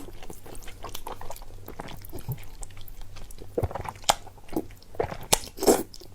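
A person chewing and biting food close to the microphone, with many small mouth clicks and a few louder bites about four and five and a half seconds in.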